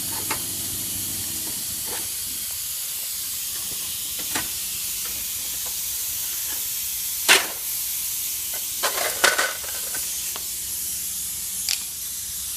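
Screwdriver prying at a van's hubcap: scattered sharp clicks and knocks, the loudest about seven seconds in and a quick cluster around nine seconds, over a steady high hiss.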